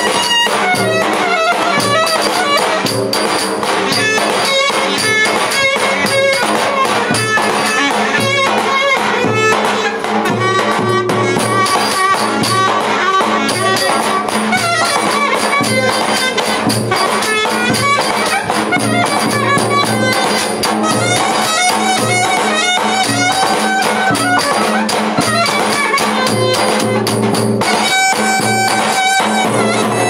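Turkish clarinet playing a fast, ornamented dance melody over the steady beat of a davul bass drum, played live.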